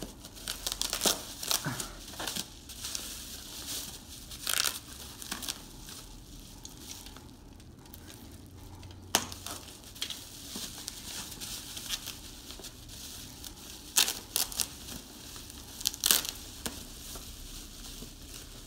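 Packaging being handled and unwrapped: irregular crinkling and rustling, with a few sharp snaps about halfway through and again near the end.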